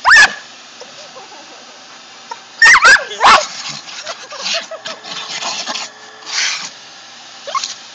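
A dog giving short, sharp barks: one at the start, then a quick run of three about two and a half to three and a half seconds in.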